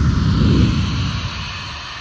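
Hair dryer running with a steady blowing hiss, its air stream buffeting the microphone with a low rumble that fades out about a second in.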